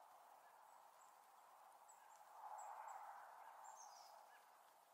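Near silence: faint outdoor background hiss with a few faint, short, high bird chirps, one of them gliding downward about four seconds in.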